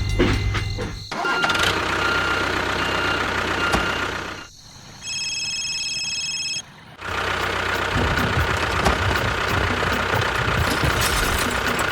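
A small engine running steadily. It cuts out about four seconds in, while a high, pulsing electronic tone sounds for about a second and a half. Then the engine sound comes back and runs on.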